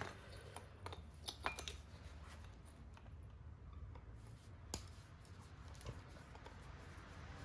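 Faint, scattered metal clicks and ticks of hand tools working on a car air-conditioning compressor's magnetic clutch assembly, with one sharper click near the middle.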